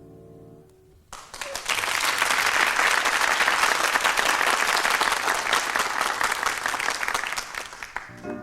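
The last held notes of a song die away, then a live audience applauds from about a second in, a steady clapping that fades near the end.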